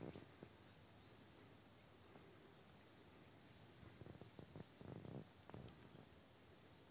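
Near silence outdoors: faint high chirps over a low hiss, with a few brief soft rustles or crackles near the start and again about four to six seconds in.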